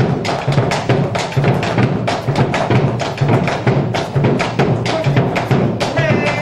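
Argentine folk music in a percussion-led passage: fast, dense sharp strikes over a recurring low drum beat.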